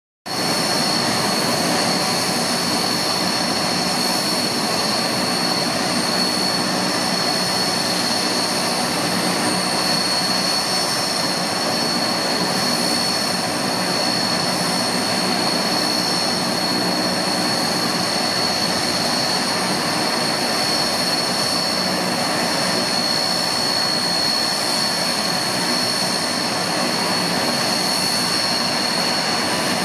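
Antonov An-12's four Ivchenko AI-20 turboprop engines running steadily with their propellers turning, a constant turbine whine high over the propeller drone.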